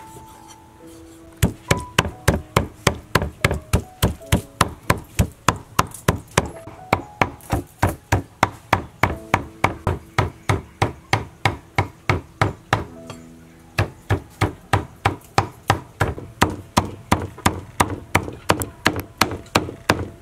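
Cleaver chopping raw pork on a thick wooden block, a fast, even run of knocks at about four a second as the meat is minced by hand. The chopping stops briefly about thirteen seconds in, then resumes. Soft background music plays under it.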